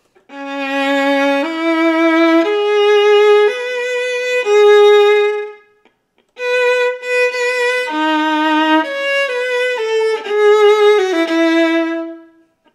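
Solo viola bowed with vibrato, playing two slow, lyrical phrases with a short break between them. The phrase endings are not held to their full note value, the playing he calls ragged.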